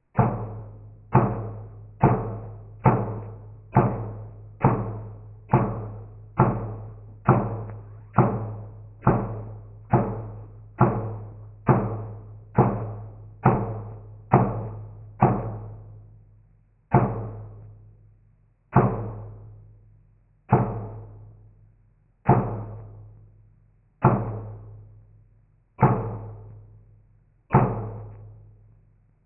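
Bass drum struck on its own over and over, each hit ringing out in an echo chamber with a long fading tail. The hits come about once a second, then slow to about one every second and three-quarters from about halfway through.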